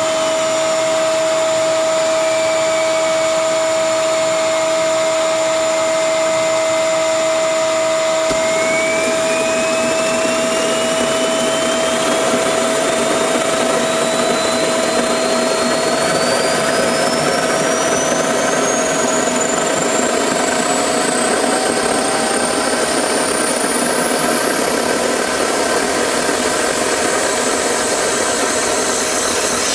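A homemade turbocharger gas turbine jet engine running with a loud, steady rushing roar and a steady hum. A thin high whine sags slightly at first, then climbs steadily for about twenty seconds as the turbine speeds up.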